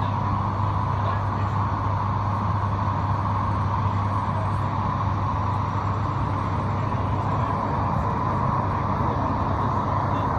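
Steady running noise of the Heathrow Express electric train, heard inside the passenger carriage: a low hum under an even rushing hiss.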